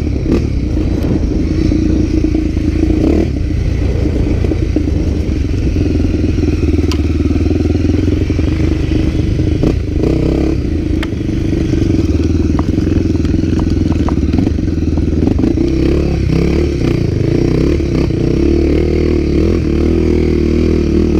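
Off-road trail motorcycle engines running loud and fairly steady under load, with a few sharp clicks and some clatter.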